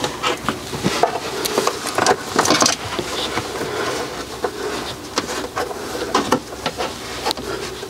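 A liner mat being handled and trimmed to fit a cupboard: irregular scraping, rustling and sharp clicks.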